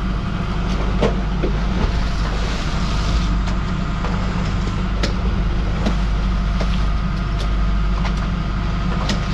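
Fishing boat's diesel machinery running with a steady low drone, with a few faint sharp clicks scattered through it.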